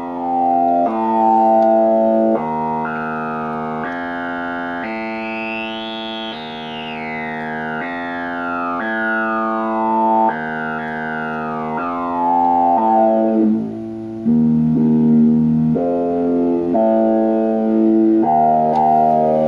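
Modular synthesizer playing a sequenced line of held notes, about one a second, through a pair of switched-resistor voltage-controlled filters that give it vowel-like formant sounds. A bright formant sweeps up over the first six seconds and glides back down by about thirteen seconds in, with the notes sounding less vowel-like where the formant sits high.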